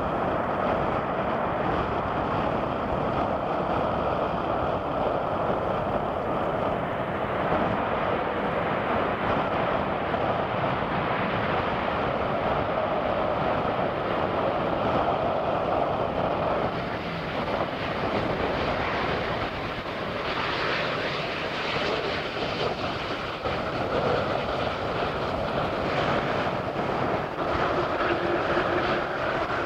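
Boeing 787 Dreamliner's jet engines and airframe rumbling steadily as the airliner rolls out along the runway just after touchdown. The noise eases slightly and turns more uneven in the second half.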